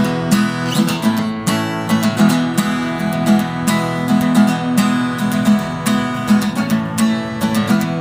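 Music led by a strummed acoustic guitar with a steady rhythm.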